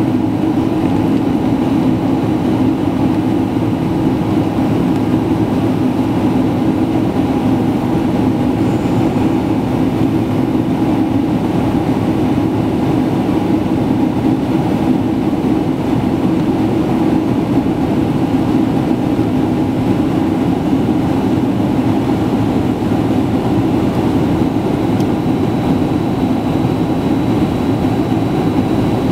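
Steady engine and airflow noise inside an airliner cabin as the plane descends to land: an even, loud rumble with no change. A faint high tone joins near the end.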